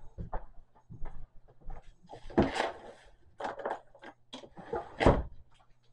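Irregular light taps, knocks and rustles of hands setting small candles into a pizza and handling its cardboard box, with a louder thump about five seconds in.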